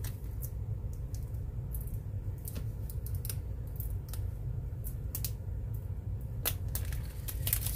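Scattered small crackles and clicks of a clear plastic decal sheet being handled and peeled back as star decals are pressed onto a tumbler, with a few sharper clicks near the end, over a steady low hum.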